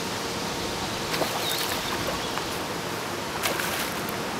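Steady rush of river current in rapids, with a few short splashes from a large brown trout thrashing at the surface near the landing net.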